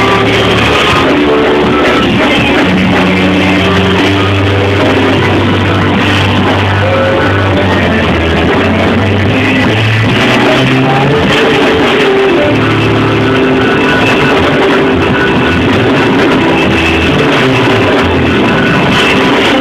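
Loud band music with guitar and drums over held bass notes that change every second or so.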